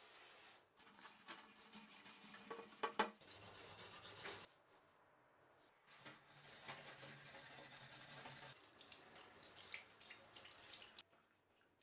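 A hand scrubbing a rusty steel axe head with powdered cleanser in a stainless steel sink: a brisk rubbing and scraping that cuts in and out abruptly several times, loudest about three seconds in.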